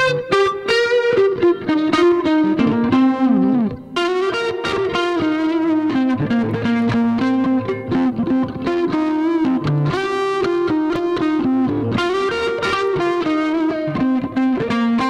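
Two recorded electric guitar parts, left and right, played back through a shared reverb and each through its own overdrive distortion (Cubase VST Amp Rack), with the dry signal mixed in. Plucked melodic phrases with a short break about four seconds in.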